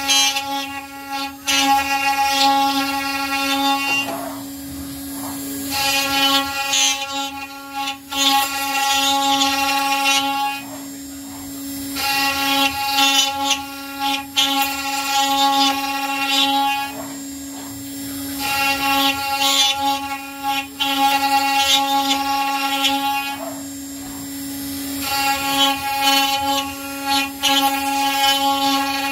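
CNC router spindle running with a small end mill cutting into a wooden table leg. A steady hum runs underneath, and a loud, high-pitched whine swells up over it in cutting passes of about four to five seconds each, five times, with short quieter gaps between as the bit moves between passes.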